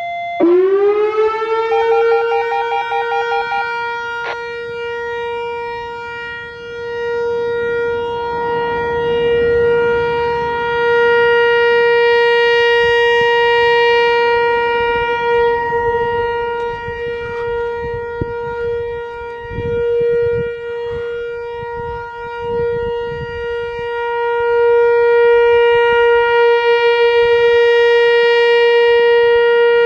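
Whelen WPS-4004 electronic outdoor warning siren sounding its steady Alert tone. It glides up in pitch in the first second, then holds one steady note that swells and fades in loudness.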